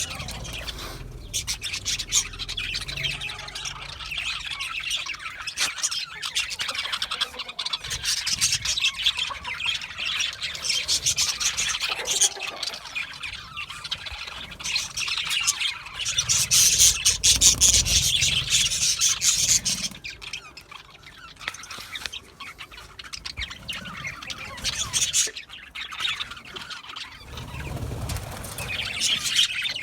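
A flock of pet budgerigars chattering, with rapid warbling chirps and squawks, busiest around the middle and quieter for a few seconds after.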